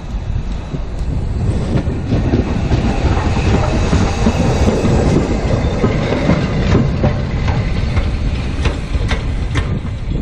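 LMS Black Five steam locomotive 45212 and its train passing close by at speed. A heavy rumble of wheels on rail swells to its loudest as the engine and tender go past mid-way, with sharp clicks from the wheels on the track.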